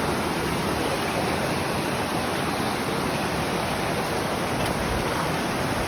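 Flowing water making a steady, even rush.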